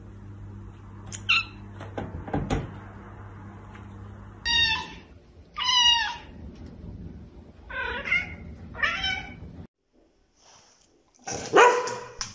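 A domestic cat meowing loudly four times, each call sliding down in pitch. After a short silence near the end, a dog barks.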